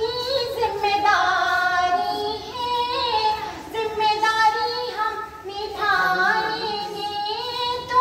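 A woman singing a lullaby in Hindi, one unaccompanied voice holding long notes and stepping between pitches.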